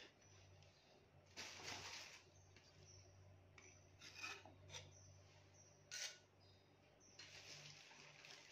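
Metal serving tongs faintly scraping and clicking against a ceramic plate as pieces of sweets are set down, in a few short scrapes and taps.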